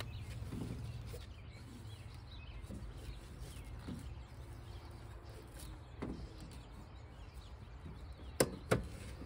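Quiet background with a low steady hum, then two sharp knocks about a third of a second apart near the end.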